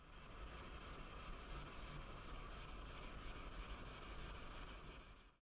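Small trimming-plane blade being sharpened on a wet whetstone: a steady, faint scraping rub made of quick, even back-and-forth strokes, which cuts off suddenly near the end.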